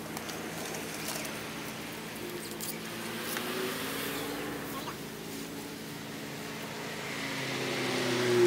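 A car engine accelerating, its pitch slowly climbing and the sound growing louder toward the end.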